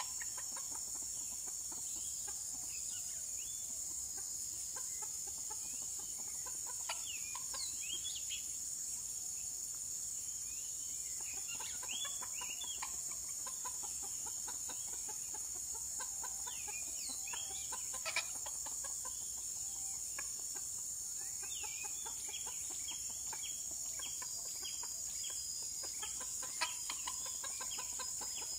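Red junglefowl clucking in several short bursts of sharp calls, over a steady high-pitched drone of insects.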